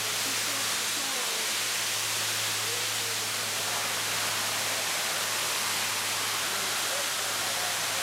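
Steady rushing of a waterfall: an even, unbroken hiss of falling water.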